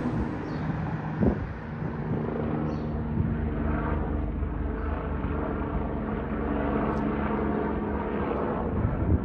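Eurocopter EC145 police helicopter flying overhead, giving a steady hum of twin turbine engines with the rapid beat of its rotor blades.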